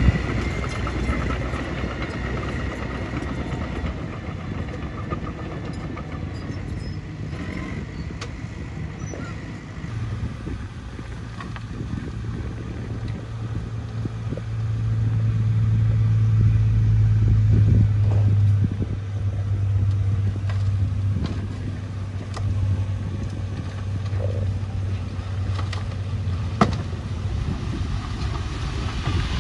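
Diesel engines of earthmoving machines: a small crawler bulldozer running as it pushes soil, then, about ten seconds in, a dump truck's engine running steadily with a low drone as the truck backs onto the fill and starts to tip its bed near the end.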